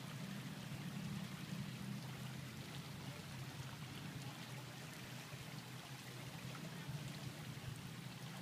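Creek water flowing steadily, with a low, even drone underneath from a Toyota Land Cruiser's engine as it creeps down the track toward the crossing.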